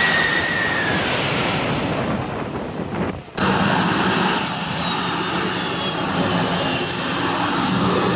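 Jet roar of a Boeing 747 passing low overhead on approach, with a whine that dips slightly in pitch. After about three seconds it cuts out briefly, then comes the high whine of a large radio-controlled Saab Gripen model's turbine engine, falling slowly in pitch over a steady rush.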